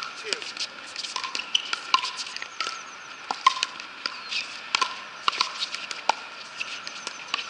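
Pickleball paddles striking a hollow plastic pickleball again and again in rallies: sharp pops with a short ring, coming irregularly and often several a second, some loud and some fainter.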